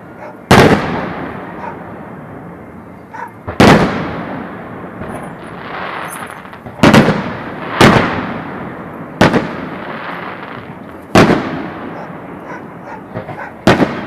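Aerial firework shells bursting overhead: seven loud booms at uneven gaps of one to three seconds, each followed by a long fading rumble.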